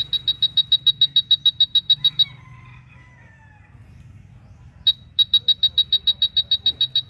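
UNI-T UT387E wall scanner beeping fast, short high beeps about seven times a second, signalling that it is over a wire or nail in the wall. The beeping stops about two seconds in; a single beep comes just before the five-second mark, and the fast beeping starts again soon after.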